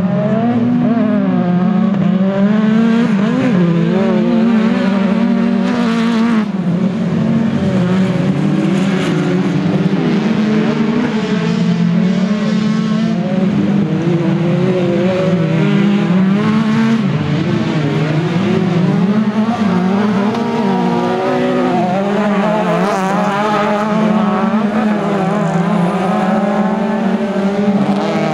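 Several autocross race cars on a dirt track, their engines revving hard, the pitch rising and falling over and over as they accelerate and lift, with more than one engine heard at once.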